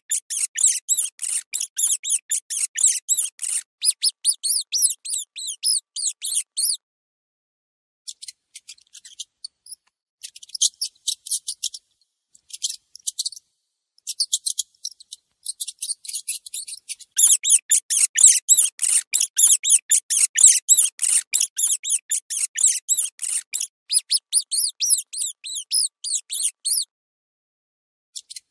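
Mouse squeaks: rapid, high-pitched short chirps, about three or four a second, each bending slightly in pitch. They come in runs broken by pauses of a second or so.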